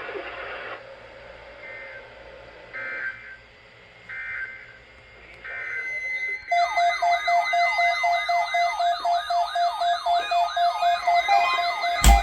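Emergency Alert System alert tones from a broadcast receiver. A few short bursts of digital data tones come first. From about six seconds in, a loud warbling siren-style alert tone sweeps up and down about three times a second over a steady tone, and a sharp click sounds near the end.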